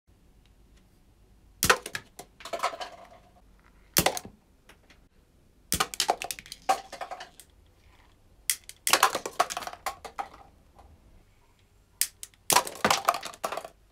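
Clear plastic cups struck by shots from a homemade Tic Tac-box gun, each hit a sharp clack followed by the light cups clattering and tumbling against each other and the tabletop. It happens in several separate bursts, some single and some in quick pairs.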